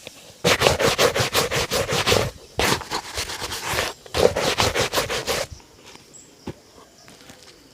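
Rapid back-and-forth buffing strokes on a leather shoe during a shoe shine, about eight strokes a second, in three bursts with short breaks, then quieter with a few light clicks near the end.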